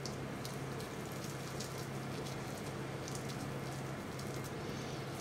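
Faint, scattered light ticks and crackles of fingers crumbling poached haddock into small flakes, over a steady electrical hum and hiss.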